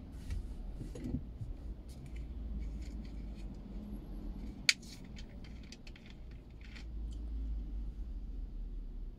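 Street traffic rumble, swelling as a car passes close near the end. Scattered small clicks throughout, with one sharp click about halfway.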